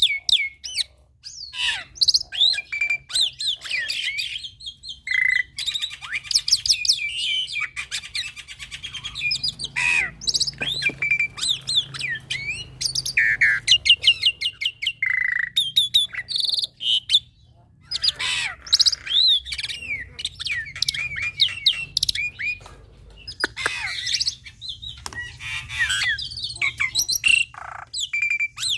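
A young black-winged myna (jalak putih) singing a long, busy song: a varied stream of whistles, rising and falling glides, rapid trills and harsh squawky notes, with only brief pauses.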